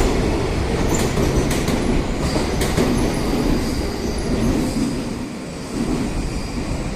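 Container freight train rolling past, a steady rail rumble with wheels clicking over rail joints, easing off a little near the end.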